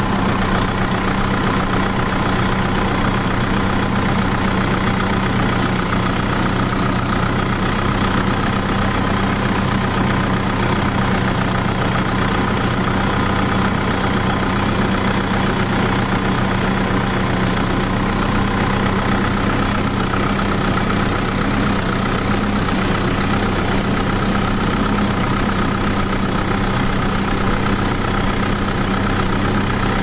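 Miniature DIY two-wheel tractor running steadily as it ploughs, a constant engine-like drone with a low hum that does not change pitch or loudness.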